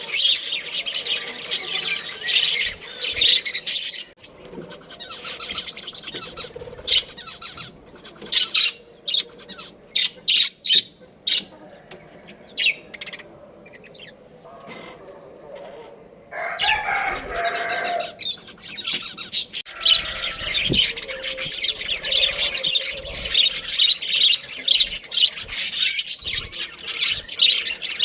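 A flock of budgerigars chattering: dense, rapid high chirps and warbles. They ease off for a few seconds in the middle, then a lower, drawn-out call sounds about two-thirds of the way through before the chatter picks up again.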